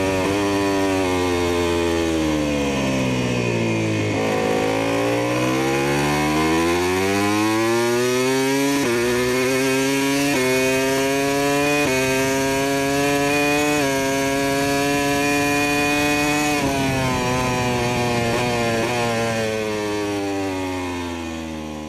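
Big-bike (sport motorcycle) engine sound effect. The revs drop, then climb through several quick upshifts, hold high, and wind down before fading out at the end.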